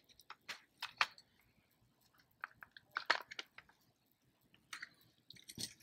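Plastic and metal parts of a keyless RV door lock being handled, giving scattered light clicks and taps.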